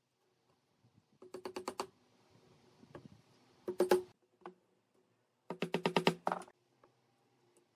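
Wooden mallet tapping the edges of pine boards on a workbench, knocking them into line: three quick runs of light blows, the last and longest about a second, with the middle run loudest.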